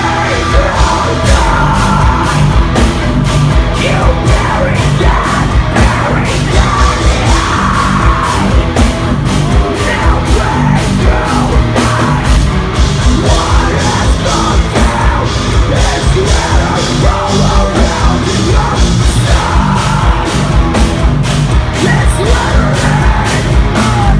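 Progressive metal band playing live at full volume: heavy distorted guitars and bass, rapid pounding drums and screamed vocals, recorded close to the stage.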